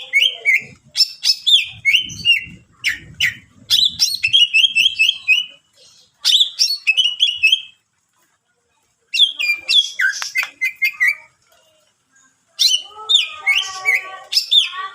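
Greater green leafbird (cucak ijo) singing loudly in bursts of rapid, varied warbling phrases and repeated notes, with short silent pauses between bursts; its song is packed with mimicked calls of other birds.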